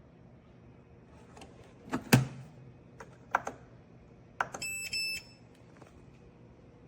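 Coffee maker being handled: a few sharp clicks and knocks, the loudest about two seconds in, then a short run of high electronic beeps from its control panel about four and a half seconds in.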